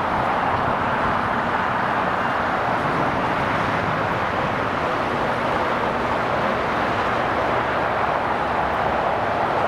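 Jet engines of a Boeing 787 airliner at taxi power, a steady even roar as the plane rolls slowly toward the listener.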